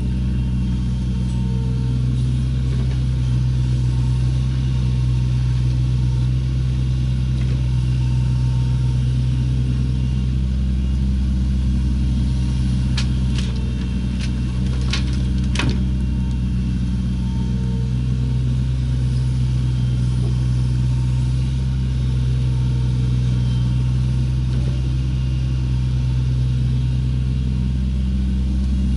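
Steady diesel engine drone of a compact hydraulic excavator working close by as it loads waste soil into a dump truck bed. A few sharp knocks sound near the middle.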